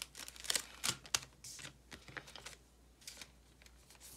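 Trading cards and clear plastic penny sleeves being handled on a table as a card is slipped into a sleeve: a run of light, irregular clicks and plastic rustles in the first couple of seconds, then only a few faint ticks.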